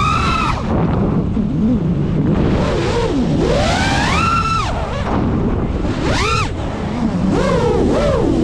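5-inch FPV quadcopter's brushless motors and propellers whining, the pitch swooping up and down sharply with each throttle punch: a swell ending about half a second in, a long rise around three to four seconds in, a quick sharp spike about six seconds in and another swell near the end. Wind rushes on the onboard camera's microphone throughout.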